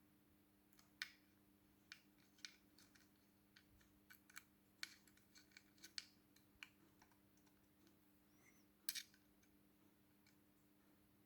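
Scattered light clicks and taps of small plastic and metal parts being handled and screwed together while an RC buggy's rear hinge pin brace is fitted, at an uneven pace, with a faint steady hum underneath.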